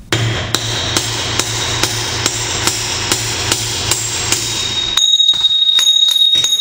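Steady hammer blows, about two a second, on a punch driving the pinion bearing's outer race out of a GM 8.5-inch 10-bolt axle housing. About five seconds in the blows come quicker and the metal rings with a high, steady tone between them.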